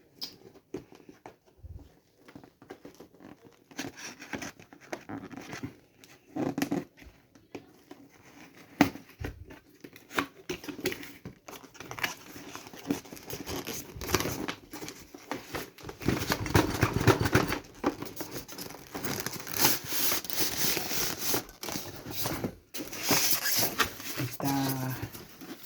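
Packaging of a model train set being opened and handled: irregular rustling, crinkling and tearing with many small clicks and knocks, growing busier and louder about halfway through.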